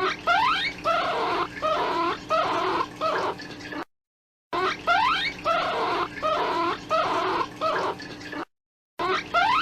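Looped recording of a rabbit hunting call. Each pass opens with a quick run of rising squeaks, followed by wavering, bleating cries. The loop repeats about every four and a half seconds, with short silent breaks between passes.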